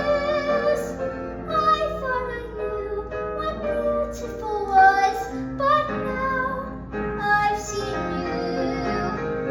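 A song: a high voice sings a slow melody over instrumental accompaniment.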